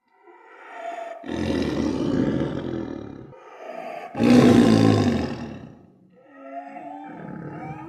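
Tiger snoring sound effect: slow, deep, harsh breaths in and out, repeating about three times, with the loudest breath about four seconds in.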